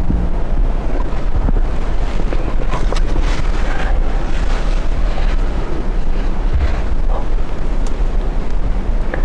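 Wind buffeting the microphone: a loud, steady low rumble with a few faint rustles on top.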